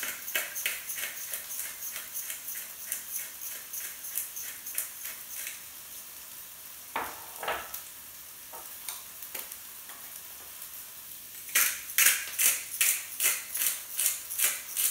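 Hand-turned spice mill grinding over a frying pan in quick, regular twists for the first five seconds or so, then again, louder, for the last three seconds. In between come two knocks and a faint, steady sizzle from the pan.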